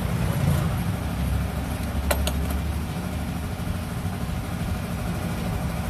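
Steady low engine drone with two sharp clicks about two seconds in.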